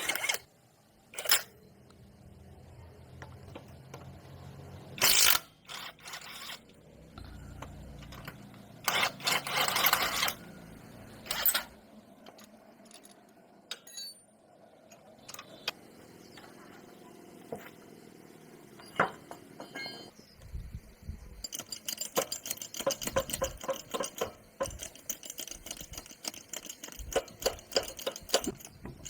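Metal tools and parts knocking, clinking and scraping during motorcycle repair work, with a long run of fast clicking in the last third.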